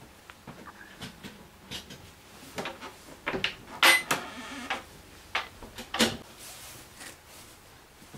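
Scattered clicks and knocks of a yacht's interior doors and fittings being handled, the sharpest about four seconds in and again about six seconds in.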